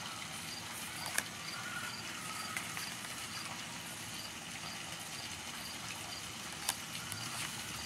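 Oracle cards being handled and shuffled from one to the next, with a couple of short clicks as cards are moved. Behind them is a steady background hiss with a faint high chirp repeating about twice a second.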